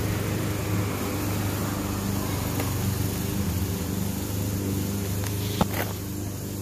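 A machine running steadily with a low, even hum, and a single sharp click a little over five and a half seconds in.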